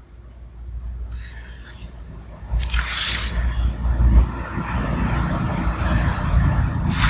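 Marker pen drawn along a steel square across a paper pattern sheet in a few short strokes, over a steady low rumble that grows louder about two and a half seconds in.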